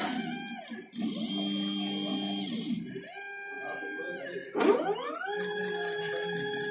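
Stepper motors of a DIY CNC thermocol cutter whining through about four moves of the gantry. Each rises in pitch as the axis speeds up, holds, and falls as it slows, with short breaks between moves.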